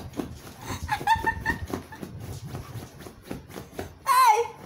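A dog pawing and scratching rapidly at a fabric cushion, with a short whine about a second in and a louder high, wavering whine near the end.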